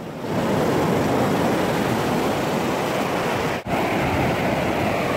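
Steady rush of ocean surf washing onto a sandy beach, mixed with wind blowing across the microphone. The sound briefly drops out about three and a half seconds in, then carries on.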